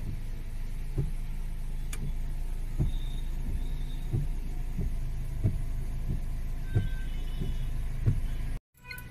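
Car engine idling with a steady low hum, heard from inside the cabin, with soft regular thumps about every two-thirds of a second from the windscreen wipers sweeping. The sound cuts off abruptly near the end.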